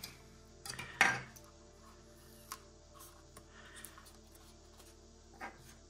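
Quiet handling of a drone's clear plastic gimbal cover being taken off and pressed back on: a short rub about a second in, then a few small plastic clicks, over faint background music.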